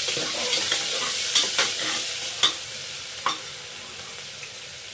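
Chopped onions sizzling in hot oil in an aluminium pressure cooker while a metal spatula stirs them, clicking and scraping against the pot several times. The sizzling gradually dies down.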